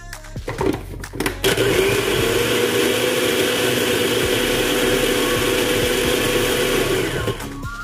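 Electric food processor running, chopping and mixing a cauliflower patty mixture of boiled cauliflower, egg, flour, onion and garlic. A few clicks as the lid and pusher are fitted, then the motor comes up to speed, runs steadily for about six seconds and winds down near the end.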